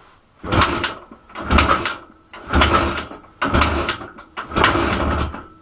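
IZh Jupiter 5 motorcycle's two-stroke twin being kick-started five times, about one kick a second, each a short burst of cranking clatter with quiet in between: the engine is not catching.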